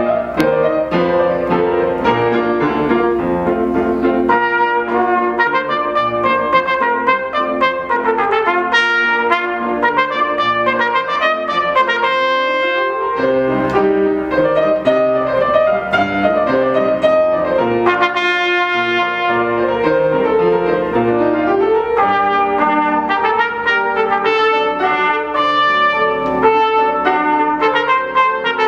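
Piano playing the introduction to a trumpet piece, starting suddenly. The trumpet comes in near the end.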